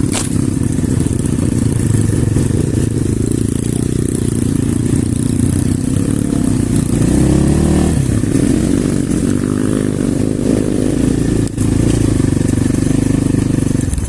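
Off-road pit bike engine running under way, its revs rising and falling several times between about seven and eleven seconds in, with a brief dip shortly after.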